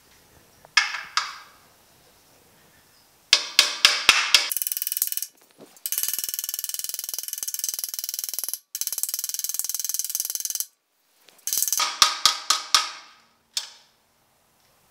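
Hammer striking the steel bumper splash apron to shrink a stretched, raised spot back down. A few sharp ringing metal blows come first, then several seconds of very rapid continuous tapping broken by short pauses, then a last handful of ringing blows near the end.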